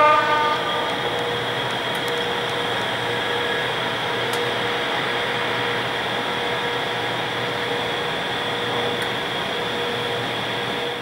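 British Rail Class 92 electric locomotive standing with its blowers and electrical equipment running: a steady fan-like rush with a constant high whine and a lower hum. A short pitched tone sounds at the very start, falling slightly as it fades.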